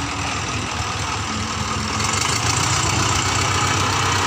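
Engine of a small narrow-gauge plantation locomotive running as it moves off and passes close by, growing louder about two seconds in.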